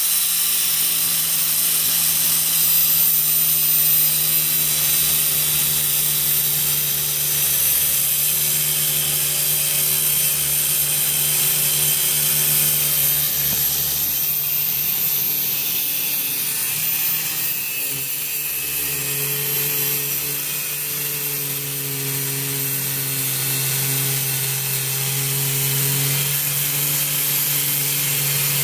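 Electric power tool running continuously under load while working through a padlock or lock on a heavy box, with a steady pitch that dips and shifts briefly about 18 seconds in as the load changes.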